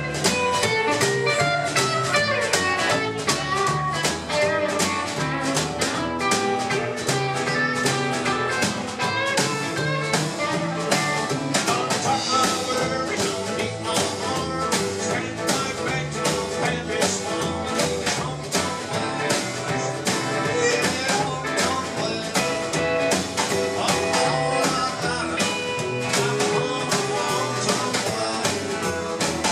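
Live country band playing a song with guitar and a steady beat.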